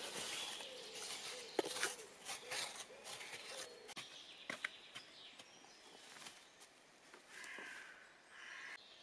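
Faint rustling of dry leaves and scraping of soil, with scattered small clicks, as a person kneels and works with their hands in a small hole dug in the forest floor. It grows quieter after a few seconds, and there are two short hissing sounds near the end.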